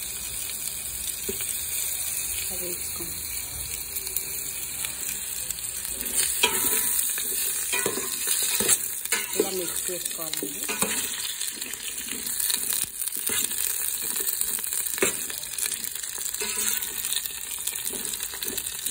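Sliced radish, tomato and onion sizzling as they fry in hot oil in a stainless steel pot. From about six seconds in, a spoon stirs them, scraping and knocking against the pot.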